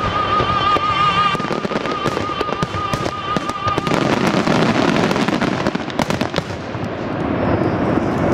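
Fireworks bursting and crackling in quick succession, set to music. In the first half the music holds a long high note with vibrato. After that the crackle thickens into a dense, continuous rattle, with a few sharper bangs a little later.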